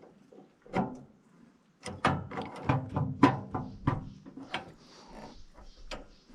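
Metal parts of a firewood processor knocking and clattering as they are worked by hand, the part just found to seem a bit loose. One knock, then a rapid run of knocks and rattles lasting about three seconds.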